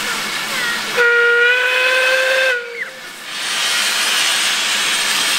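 Steam tank locomotive No 3 Twizell hissing steam, sounding one whistle blast of about a second and a half that starts about a second in and rises slightly in pitch before cutting off. The steam hiss then builds again.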